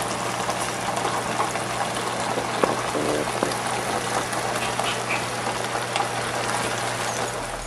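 Pancit chami noodles in sauce simmering in the pan, a steady sizzling and bubbling, with a low steady hum underneath.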